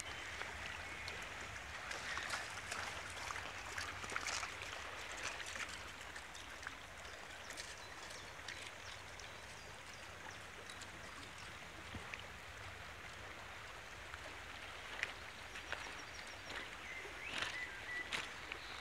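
Shallow river running steadily over gravel, with scattered small splashes and clicks on top.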